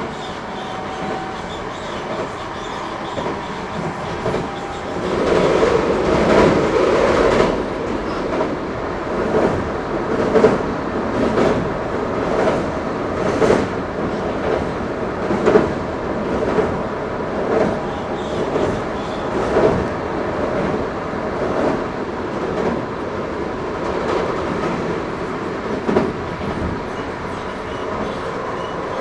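Eidan 05 series (N05) subway train running between stations, heard from inside the car: steady running noise with the wheels clicking over rail joints about once a second. A louder rush of noise lasts a couple of seconds about five seconds in.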